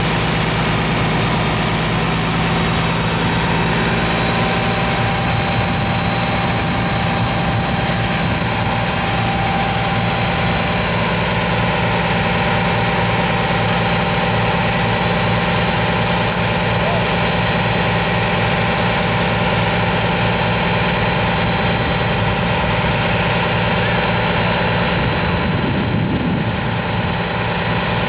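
Fire tanker truck's engine running steadily to drive its water pump, with a constant hiss of water from the roof-mounted deck gun spraying a high arc.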